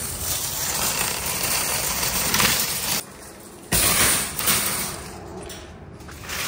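Steel wire shopping cart rolling over pavement, its wheels and basket rattling, then a sharp metal clatter near the middle as it is rammed into a row of nested carts.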